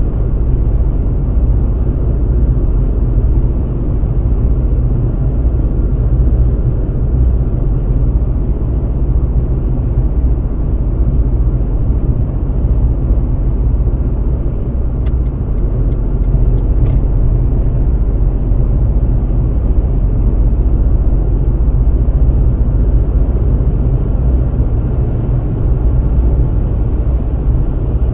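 Steady low rumble of a car travelling at motorway speed: engine and tyre-on-road noise, with no change in pace. Two faint ticks a couple of seconds apart past the middle.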